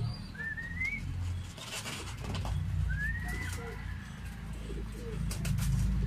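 Pigeons cooing, with two short rising squeaky calls, one about half a second in and one about three seconds in, and a few quick clicks near the end.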